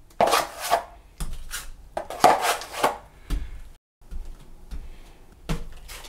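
Steel drywall taping knife scraping against a metal mud pan as it loads joint compound, several quick scrapes in the first three seconds. After a brief drop-out, softer scrapes of the knife spreading the compound, with one sharper stroke near the end.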